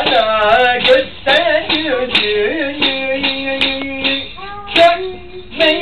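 A single voice singing a slow melodic line with sliding, ornamented notes and a long held note partway through, broken by a few sharp clicks.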